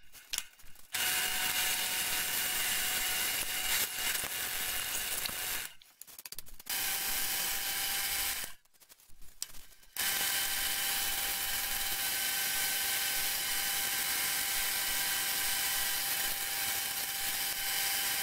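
Drill press running with a 1-inch Forstner bit boring holes in plywood: a steady motor whine over the noise of the bit cutting. It stops briefly twice, about six and nine seconds in.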